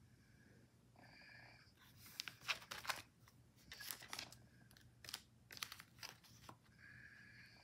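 Pages of a thick coil-bound collage book, magazine pictures glued onto paper, being turned: a few faint paper flips and rustles. A short high tone sounds twice, once near the start and once near the end.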